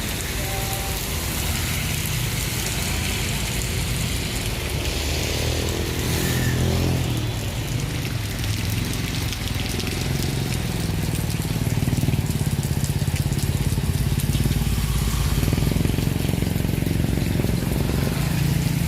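Steady hiss of heavy rain mixed with the low running of motor vehicle engines. A vehicle passes with a falling pitch about six to seven seconds in.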